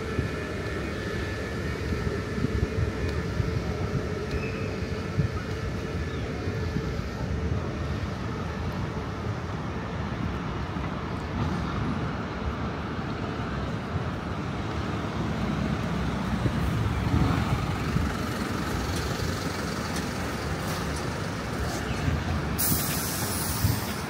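Steady rumble of city traffic and passing vehicles, with a sharp hiss of air near the end.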